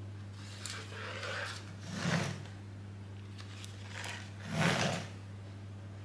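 A metal baking tray full of meringue is bumped on a wooden worktop twice, about two and a half seconds apart, with lighter scraping and handling between. A steady low hum runs underneath.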